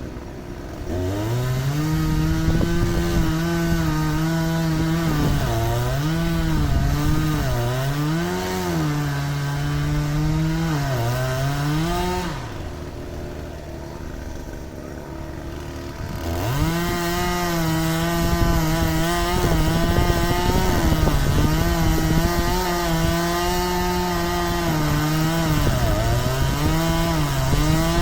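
Two-stroke chainsaw cutting wood at high revs, its pitch dipping and recovering as the chain loads in the cut. It drops back for about four seconds midway, then revs up and cuts again.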